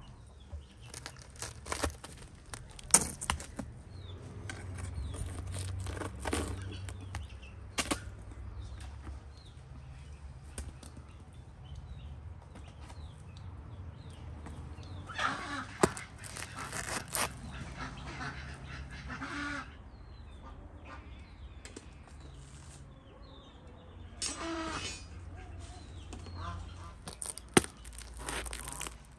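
Flatbreads being pried off the tandoor's hot clay walls with a metal hook and lifted out, with a few sharp knocks. Birds call in noisy bursts around the middle and again near the end.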